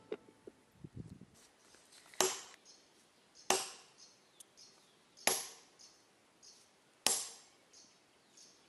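Hammer striking a row of metal wedges driven into a boulder to split the stone: four sharp metallic clanks, each with a short ring, one every one and a half to two seconds.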